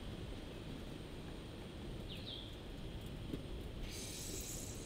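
Quiet outdoor ambience: a steady low rumble, with a single short bird chirp about two seconds in.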